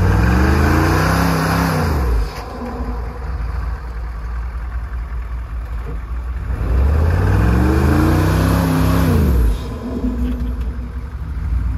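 Squarebody Chevy K5 Blazer's engine revved hard twice, each rev about three seconds long with the pitch climbing and then dropping, at the start and again about seven seconds in. The engine runs lower between the revs. The truck is fighting to climb through deep snow and is getting stuck.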